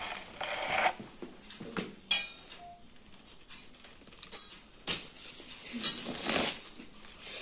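Scattered rustling and knocks of handling. About two seconds in there is a short metallic clink that rings briefly, and about six seconds in a sharper knock, the loudest sound, followed by rustling.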